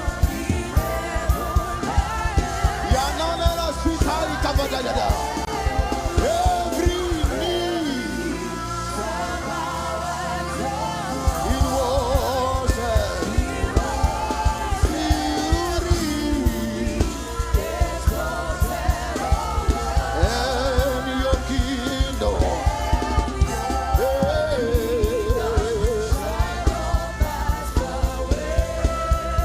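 Live gospel music: a lead voice singing with heavy vibrato over a band with a steady drum beat. The deep bass drops out for a moment about ten seconds in.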